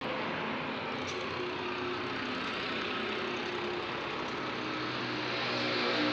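Steady engine-like hum and hiss of a running vehicle, growing a little louder near the end.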